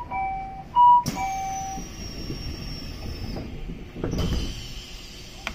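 Commuter train door chime, a high-then-low two-note tone sounded twice. A hiss of air with a faint falling whistle follows, then the sliding doors close with a thud about four seconds in.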